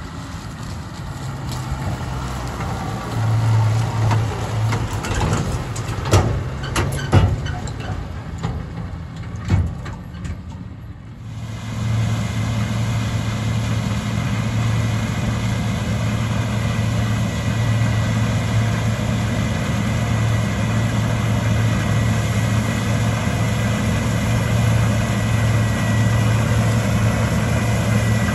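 A tractor engine grows louder as it approaches, with scattered knocks and rattles. About eleven seconds in, this gives way abruptly to a New Holland CX combine harvester cutting rapeseed: a steady, loud engine drone with a constant hum from the threshing machinery.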